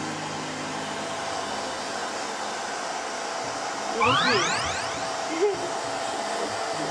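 Hair dryer blowing steadily with a steady whine. About four seconds in, a short whistle-like sound sweeps quickly upward over it, the loudest moment.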